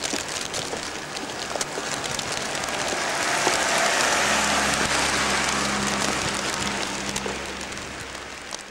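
Steady rain with scattered sharp drop ticks, and a car passing on the wet road: its engine and tyre hiss swell to a peak about four seconds in and then die away.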